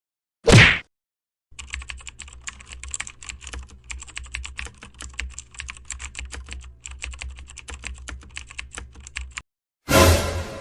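Computer keyboard typing sound effect: rapid key clicks for about eight seconds over a low hum. A short, loud sweeping burst comes just before it, and another short burst comes near the end.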